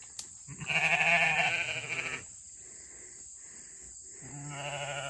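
Hair sheep bleating: a loud, long, wavering bleat about half a second in, then a shorter, quieter bleat near the end.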